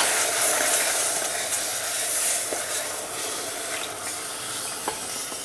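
Hot milk-and-sugar syrup being poured gradually into a pot of butter-toasted semolina and flour, sizzling as it meets the hot mixture. The sizzle is loudest as the pouring starts and slowly dies down, with a faint tick or two of the wooden spatula.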